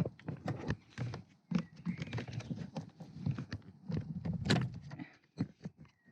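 Plastic car door switch panel being prised and worked loose by hand, its clips and catches giving a run of irregular clicks, knocks and rattles, with one louder knock about four and a half seconds in.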